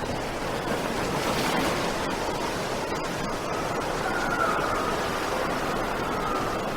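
Strong wind rushing steadily, with a faint wavering whistle coming in about two-thirds of the way through.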